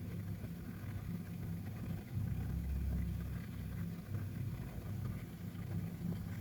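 Persian cat snoring in its sleep: a low, steady rumble that swells in patches, loudest a couple of seconds in.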